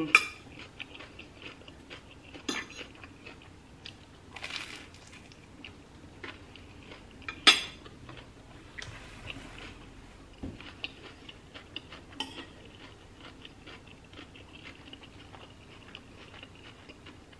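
Close-up eating sounds: steady chewing with small crunches, and metal cutlery clinking against a ceramic plate and bowl a few times, the loudest clink about seven and a half seconds in.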